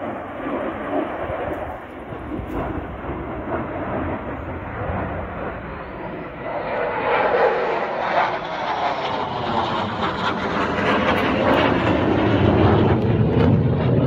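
Fighter jet's engine noise as it flies overhead. It is steady at first, grows louder about halfway through with a sweeping, shifting pitch, and is loudest near the end.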